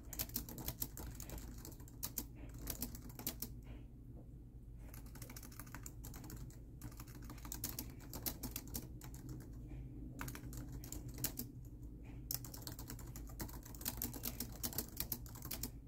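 Typing on a laptop keyboard: quick runs of key clicks broken by short pauses, over a steady low hum.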